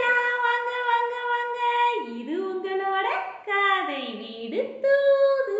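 A woman's high voice singing a short opening tune, holding long notes with slides up and down in pitch between them.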